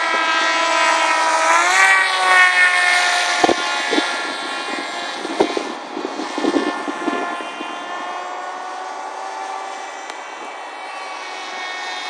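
Electric motor and propeller of a radio-controlled foam combat wing whining in flight, its pitch rising sharply about two seconds in as the throttle goes up, then holding steady.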